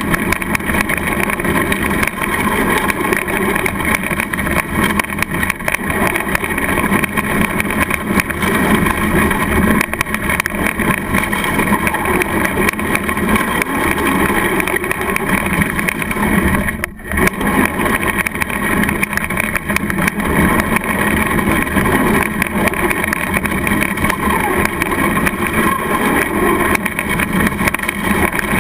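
Traxxas Slash RC short-course truck driving over gravel, heard up close from a camera mounted on its body: steady motor and drivetrain noise mixed with gravel crunching under the tyres. There is a brief drop in loudness about seventeen seconds in.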